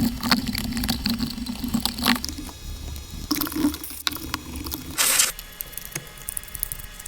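A toothbrush scrubbing a wet Suzuki TS185 carburetor, with squishing and dripping liquid sounds and scattered small clicks, and a short hiss about five seconds in.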